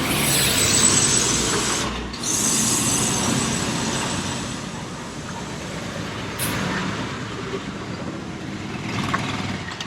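Road vehicle noise, an even rushing sound that is loudest in the first few seconds and fades away after about four seconds.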